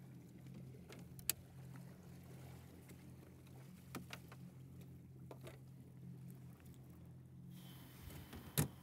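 Jet ski engine idling as a faint, steady low hum, with a few sharp clicks and knocks scattered through it; the loudest knock comes near the end.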